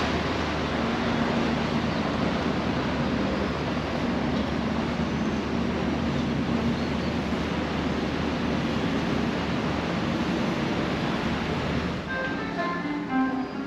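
Steady outdoor wind and river noise rushing over the microphone, with a low steady hum underneath. Near the end it gives way to music with plucked-string notes.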